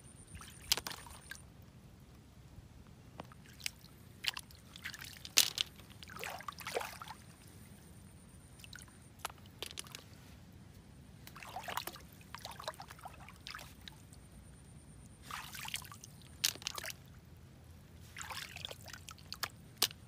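Hands digging in mud under shallow river water for clams: irregular sloshes and splashes with squelching mud, coming in bursts a few seconds apart. A sharp click about five seconds in is the loudest sound.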